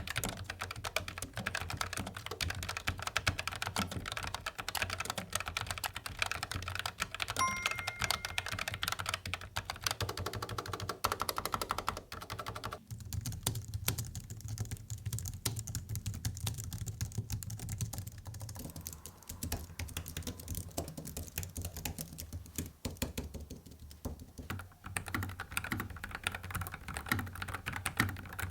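Continuous fast typing on mechanical keyboards, several keyboards in turn, one of them the Logitech MX Mechanical low-profile keyboard. The clacking changes character about thirteen seconds in, turning duller and thumpier, and again about twenty-five seconds in.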